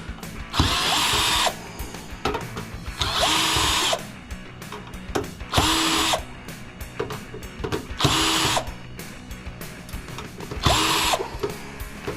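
Cordless power drill backing screws out of a metal equipment chassis in five separate runs of about a second each, a few seconds apart.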